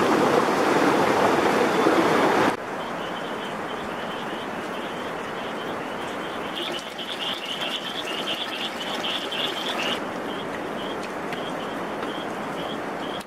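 Rushing stream water for the first two and a half seconds, cut off suddenly. Then a quieter steady hiss with a rapid run of high, short chirping calls from a night animal, loudest in the middle.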